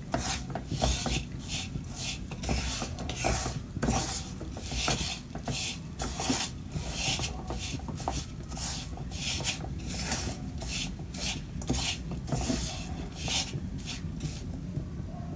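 Wooden spatula scraping and stirring clumps of muscovado sugar around a metal wok as the sugar caramelizes, in repeated rasping strokes about two or three a second.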